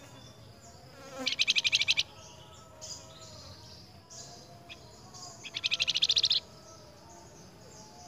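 Flamboyan songbird giving two fast, buzzy rattling trills, each under a second, the first about a second and a half in and the second about six seconds in.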